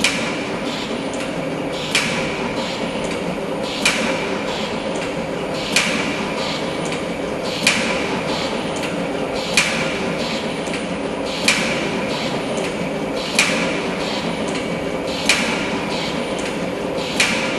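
CTSS 33 automatic wire cutting and stripping machine running on compressed air: a steady mechanical hum with a sharp stroke about every two seconds as each wire is cut and stripped. Each stroke brings the noise of the air jet blowing away the stripped insulation and of the guide tube being bent by air for a longer stripping length.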